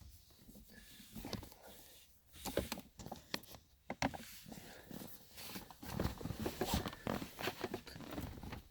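Faint scattered clicks and rustling from a car's shift knob and its boot being pulled and worked hard upward, the knob still held fast on the lever. The clicks grow more frequent after the first couple of seconds.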